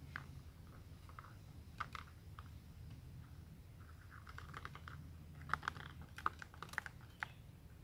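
Small, irregular clicks and crackles of fingers handling a traditional shrimp snare of banana-fibre line on a coconut-leaf-rib rod. There are a few isolated ticks at first and a busier run of clicks about halfway through.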